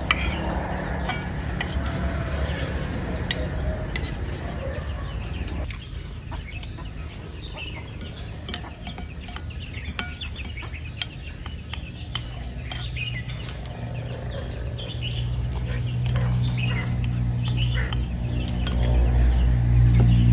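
Metal spoon clinking and scraping on ceramic plates during eating, in short scattered clicks, with bird calls in the background. Steady low tones grow louder over the last few seconds.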